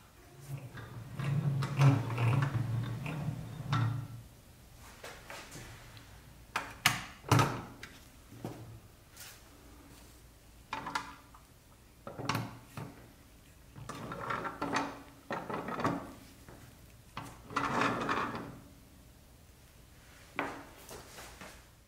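Restored 1960s Nylint pressed-steel toy roadster being handled and rolled on a hard floor: several bursts of rolling rattle a second or two long, with a couple of sharp knocks about seven seconds in.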